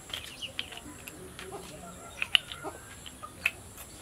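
Scattered short bird calls, with a few sharp taps about two and three and a half seconds in.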